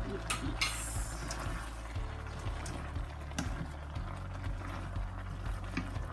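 Wooden spoon stirring and tossing vegetables and pork in a sauce-coated pan, with scattered knocks and scrapes against the pan, over a steady low hum. A short hiss sounds about half a second in.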